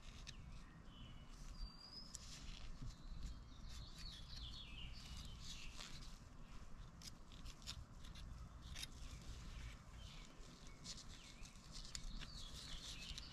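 Faint, irregular small metallic clicks and scrapes as the coil clutch springs of a 1970 Honda CT90 are worked out of the clutch centre by hand, with a few faint high squeaks.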